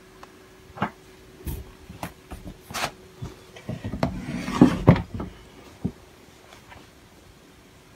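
A caracal shifting and scratching in a plastic-lined litter box: scattered scrapes, rubs and rustles, busiest in a cluster about four to five seconds in.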